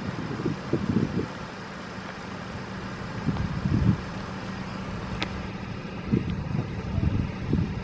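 Wind buffeting the camera's microphone in uneven low gusts over a steady low hum, with one sharp click about five seconds in. The siren is not sounding.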